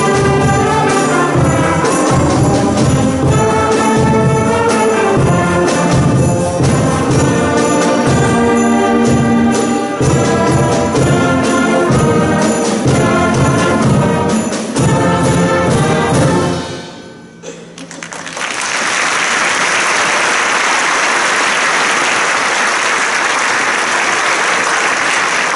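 Middle school concert band of brass, woodwinds and percussion playing a piece to its end, which stops about 17 seconds in. After a short pause the audience applauds steadily.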